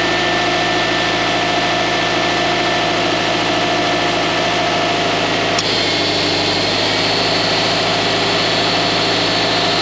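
Subaru Impreza WRX STI (GRB) turbocharged flat-four idling steadily, with thin steady whining tones over the engine sound. These come from the alternator pulley and V-belt rubbing, which give a squeal typical of a worn belt and pulley. About halfway through there is a brief click, and the whining tones change pitch.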